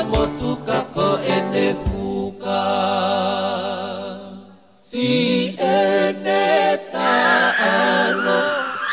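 Choral song with voices singing in harmony, accompanied by sharp clapping beats in the first couple of seconds. About halfway through, a held chord fades out briefly, then the group singing starts up again.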